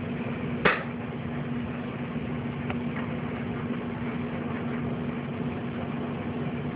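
Steady mechanical hum with a constant low tone under an even hiss, broken by one sharp click a little under a second in and a few faint ticks afterwards.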